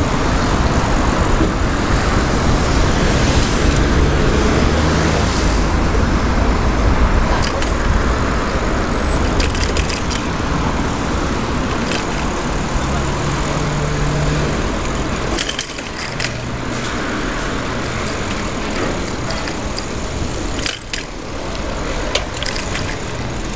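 Street and traffic noise heard from a moving bicycle, with passing cars and a steady low rumble, and a bike chain lock rattling with a few sharp clicks scattered through.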